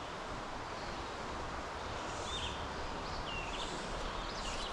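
Steady rush of a flowing trout stream, with a few short bird chirps about two and three and a half seconds in.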